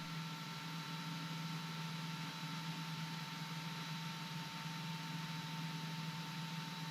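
Steady drone of a Beechcraft Debonair's six-cylinder piston engine and propeller during an approach descent, heard faintly under an even hiss with a few thin steady high whine tones.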